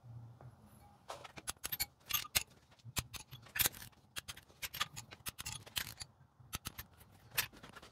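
Torque wrench with a ratchet head tightening the crankcase-half nuts of a 40 hp VW air-cooled engine to 15 foot-pounds: irregular clusters of sharp metallic ratchet clicks, with the socket clinking on the nuts as it moves from one nut to the next.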